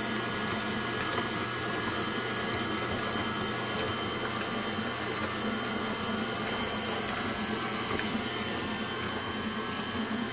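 KitchenAid Classic stand mixer running steadily, its wire whip beating creamy cookie batter in the stainless steel bowl.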